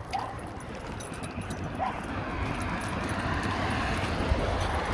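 Faint dog barks, one about the start and another near two seconds in, over a rushing hiss that grows steadily louder through the rest.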